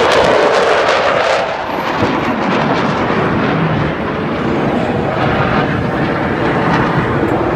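Loud roar of a fighter jet's engines passing over, dropping in pitch in the first second and a half, then a steady roar.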